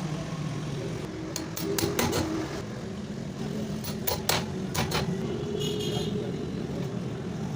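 Sharp metallic clicks and knocks of hand tools working on motorcycle brake parts, several in quick groups, over a steady background of traffic hum and distant voices.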